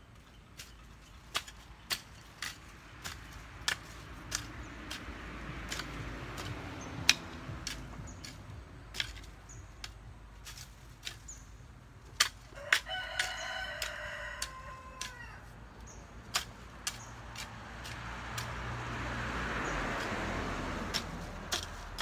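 A hand hoe chopping into garden soil in irregular strikes, roughly once a second, while a rooster crows once a little past the middle, one long call of about two seconds. A soft rushing noise swells and fades twice.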